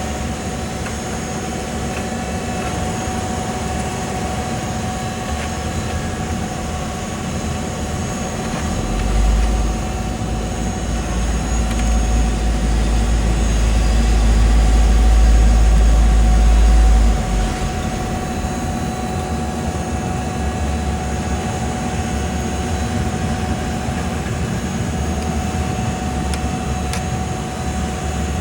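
Heavy diesel construction machinery running steadily at a paving site, a constant engine hum with a few steady tones. About a third of the way in a deep low rumble builds and grows louder, then cuts off sharply a little past halfway.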